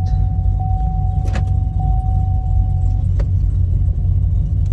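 Chevrolet Camaro engine idling through its newly fitted exhaust, a steady low rumble heard from inside the cabin, with a few light clicks.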